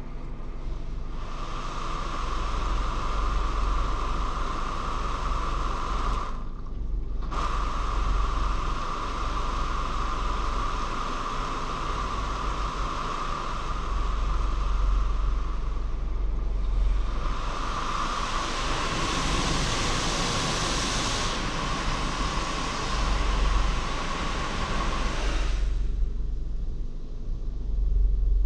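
High-pressure water jets of an automatic car wash spraying against the car's windshield and body, heard from inside the car as a steady hiss with a high whine in it. The spray cuts out briefly about six seconds in, grows harsher later on, and stops a few seconds before the end, leaving a low rumble.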